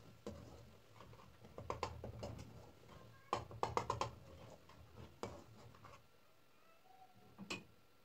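A metal utensil scraping and clicking against the side and bottom of a steel karahi while stirring a thick masala, in short clusters of scrapes and taps, with a last single clink near the end. A low hum runs underneath and fades out about six seconds in.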